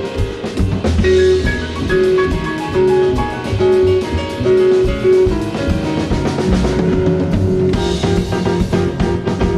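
A small jazz group playing live: double bass, piano and drum kit, with a note repeated over and over in the middle range and drum strokes running through.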